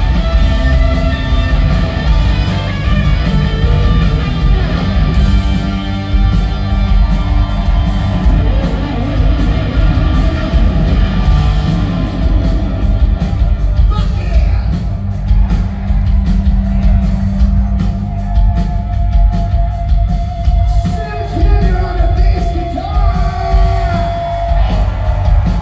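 Rock band playing live: electric guitars, drums and bass with singing, recorded from the crowd in a large hall.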